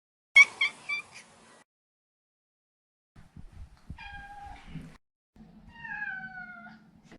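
A Maine Coon cat meowing: three or four quick, short meows a little after the start, then two longer meows, each sliding down in pitch, about four and about six seconds in.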